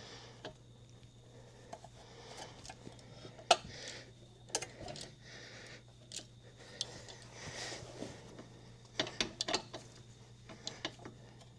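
Scattered metallic clicks and knocks from hand tools and parts being worked on a car's front suspension while the coil spring is compressed to seat the ball joint. The sharpest knock comes about three and a half seconds in and a quick cluster near the end, over a steady low hum.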